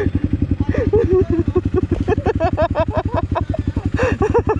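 Dirt bike's single-cylinder engine idling with a fast, even beat.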